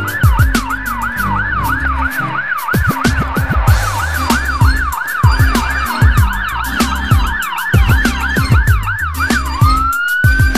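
Electronic emergency-vehicle siren in fast yelp mode, sweeping up and down about three times a second, changing near the end to a slow rising wail. Music with a steady bass beat plays under it.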